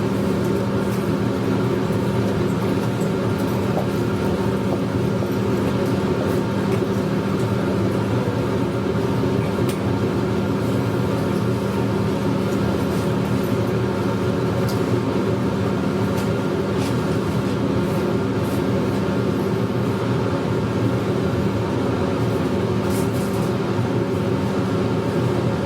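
Meitetsu 100 series electric train running at steady speed: a continuous hum and rumble of motors and wheels on the rails, heard from the driver's cab.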